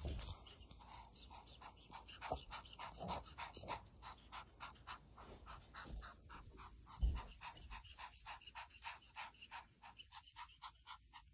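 Golden kitten making a rapid run of short, soft calls, about four a second, its mouth open as it looks up. A low thump about seven seconds in.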